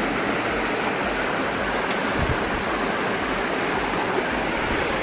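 Steady rushing of a waterfall and river water.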